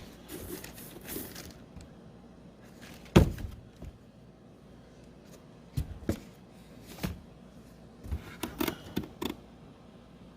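Cardboard box and packaging being handled: scattered knocks and clicks with soft rustling, the loudest knock about three seconds in and a cluster of clicks near the end.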